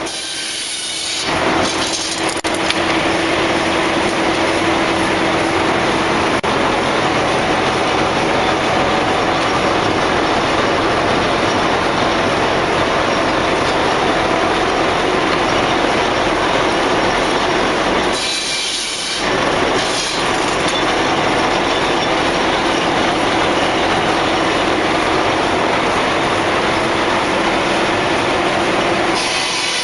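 Machinery of a heritage shingle and stave mill running: a loud, steady mechanical noise that drops away briefly twice.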